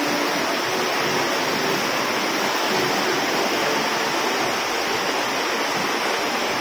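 Steady rush of flowing water, like a stream or small cascade.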